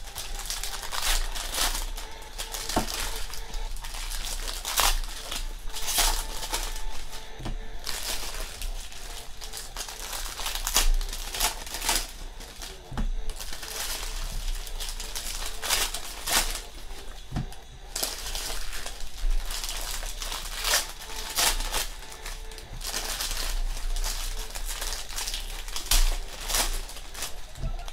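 Foil wrappers of Panini Prizm football card packs crinkling and rustling in irregular spurts as the packs are opened and crumpled by hand.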